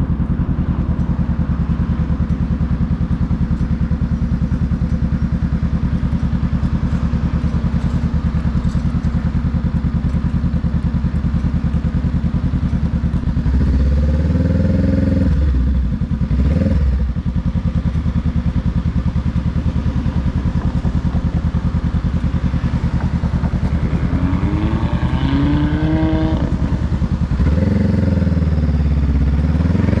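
2021 Honda Rebel 500's parallel-twin engine through a TBR Comp S exhaust, running steadily under way. About halfway through the revs climb, break off briefly and climb again, and near the end they climb, drop and climb once more.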